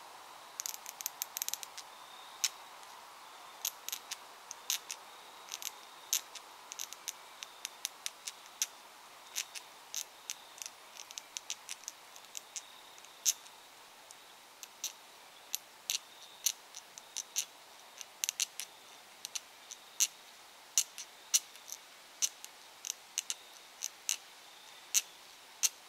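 Squirrel call made with two quarters: the ridged edge of one quarter is worked against the other, held cupped in the hand like a drum head, to imitate a squirrel's teeth gnawing on a nut hull. It comes as a long run of sharp, irregular clicks, one to three a second with some quick clusters.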